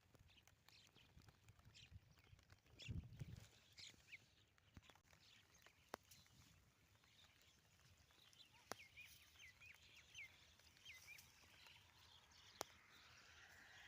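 Near silence: faint outdoor ambience with a few scattered clicks and a short run of faint high bird chirps about two-thirds of the way in.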